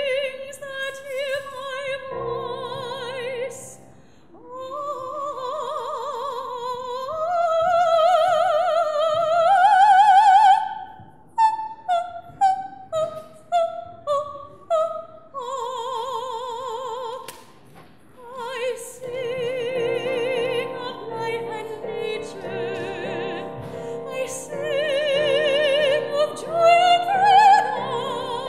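Soprano singing a wordless coloratura passage over piano accompaniment, sung as the nightingale's song in an opera: long high notes with wide vibrato, climbing runs, and a string of short detached notes about halfway through.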